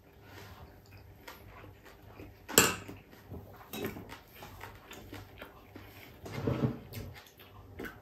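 Close-up eating sounds of a man eating with his hands: chewing and mouth noises. There is a sharp clack about two and a half seconds in, and a longer, low chewing sound near the end.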